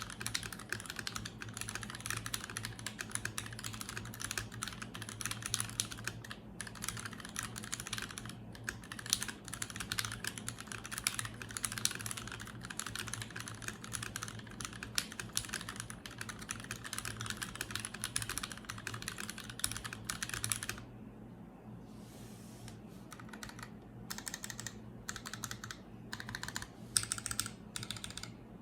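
Typing on an acrylic-cased Cat980mini mechanical keyboard with lubed and filmed Marshmallow switches: a fast, steady run of keystrokes that stops about three quarters of the way through, then resumes in short, sparser bursts.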